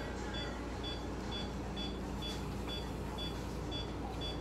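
Veterinary anesthesia monitor beeping in a steady rhythm, about two short high beeps a second, the pulse tone of the anesthetized patient, over a low steady hum.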